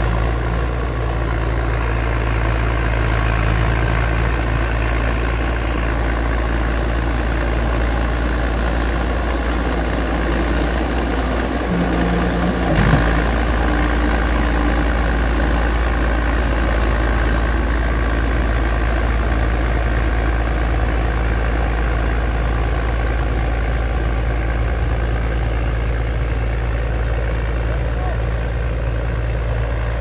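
TG 75 crawler bulldozer's diesel engine running steadily while it works earth with its blade, with a brief louder change in pitch about 13 seconds in.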